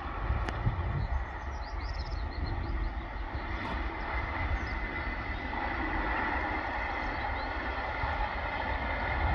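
Electric-hauled passenger train running past, its rail and running noise growing steadily louder, with wind buffeting the microphone in a low rumble. A few faint bird chirps are heard about a second in.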